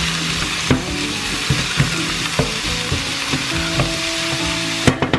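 Chopped peppers, mushrooms and red onion sizzling in oil in a frying pan. A wooden spatula stirs them, with scattered light knocks and scrapes against the pan.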